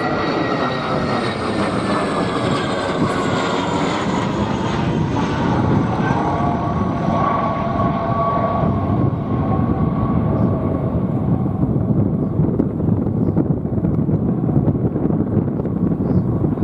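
Dassault Atlantique 2's twin Rolls-Royce Tyne turboprops passing by: the propeller and engine tones drop in pitch as it goes past, and a broad, loud rushing noise carries on after.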